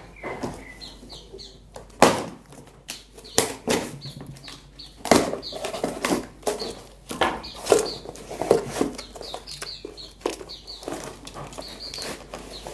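Freshly shipped wild birds flapping and fluttering in fits, with irregular scuffles and knocks and repeated short, high chirps.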